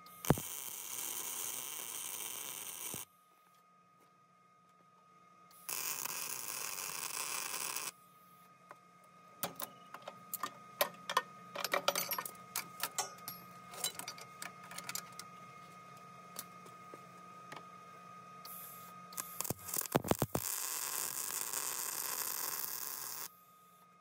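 MIG welder arc running in three short welds of two to three seconds each, a steady hiss while the wire feeds. Between the second and third welds come many sharp clicks and taps.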